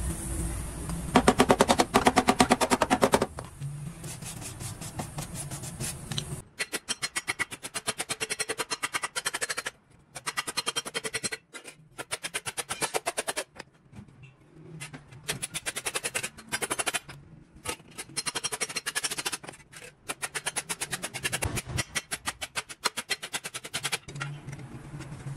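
Rapid runs of hand-hammer blows on a small steel patch plate laid over a steel beam, shaping the repair piece, several strikes a second with short pauses between runs. A gas welding torch's flame rumbles briefly at the very start.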